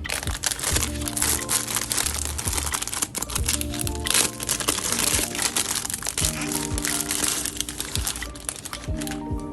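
Packaging being handled, crinkling and crackling unevenly, with background music.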